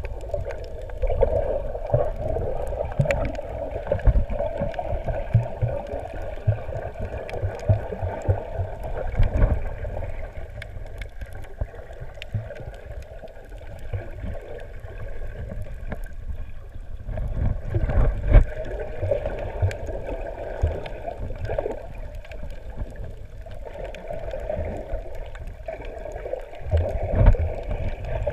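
Muffled water sounds picked up underwater: gurgling and sloshing with many irregular low thumps and a steady hum in the middle range.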